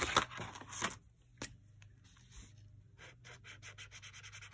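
Handling noise, then a single sharp click about a second and a half in, then a felt-tip marker scratching quickly back and forth on paper, filling in a black colour swatch.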